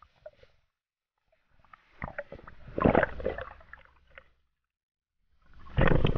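Underwater water noise: muffled gurgling and rushing of water around a diver's camera as the spearfisher swims, with small clicks, in two surges about three seconds apart.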